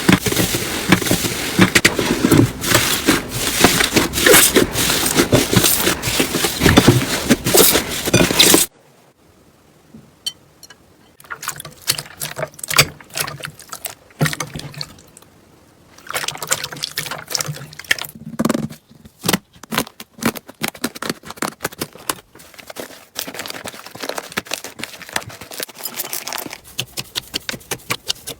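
Slime being squeezed and pressed by hand: dense crackling and popping for the first nine seconds or so. After a sudden cut, sparser wet squelches and clicks.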